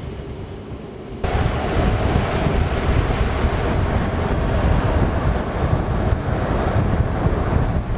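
Muffled low road rumble inside a moving car, then, after a cut about a second in, a loud, steady rush of wind over a microphone mounted on the side of a moving Lamborghini Huracán, mixed with its road and running noise.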